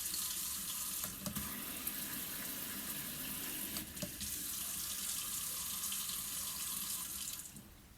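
Cold water running from a brushed-steel kitchen mixer tap into the sink as a steady rush, shutting off about seven and a half seconds in as the lever is closed.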